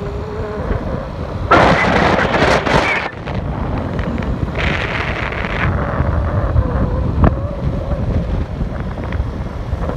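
Wind buffeting the microphone of a phone filming from a moving vehicle, over a steady low road rumble, with two louder gusts about one and a half and five seconds in.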